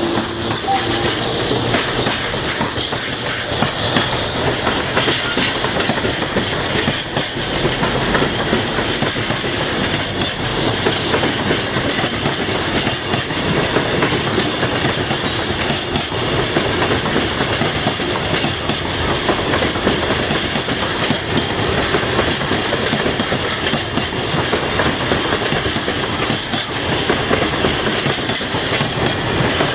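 Freight train rolling past, its wagons' wheels running steadily on the rails.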